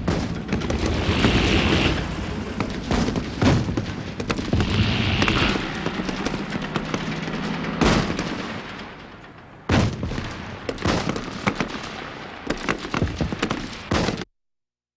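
Infantry battle: rapid small-arms and machine-gun fire with several heavy booms, which cuts off suddenly near the end.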